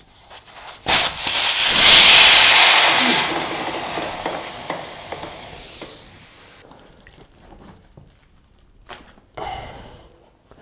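Air rushing out of an inflated fat-bike wheel as it is let down from about one atmosphere: a loud hiss that starts suddenly about a second in, then fades as the pressure drops, and stops abruptly after about five seconds. A short rustle follows near the end.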